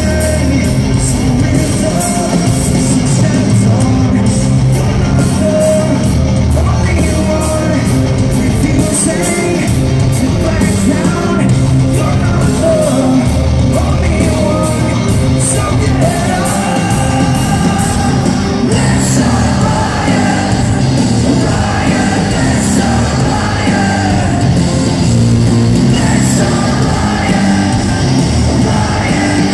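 Hard rock band playing live in an arena, with distorted guitars, bass and drums under a singer's vocals and yells. The sound is loud and echoing in the big hall.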